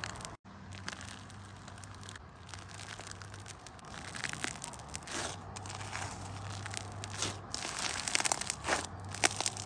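Fluffy white slime being kneaded and pressed between the hands, giving a dense run of small crackles and pops that grows busier near the end. There is a very brief gap just after the start.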